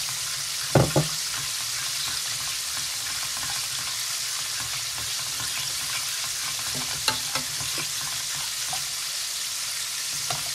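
Butter-and-flour gravy base sizzling in a stainless steel pot as cold water is worked into it, while a metal ladle stirs and scrapes. The ladle knocks sharply against the pot twice about a second in, and twice more lightly about seven seconds in.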